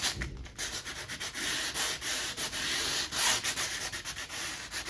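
Folded 120-grit sandpaper rubbed by hand back and forth over a varnished canvas painting, a rapid dry scratching in long, uneven strokes as it scuffs the glossy varnish off the white background.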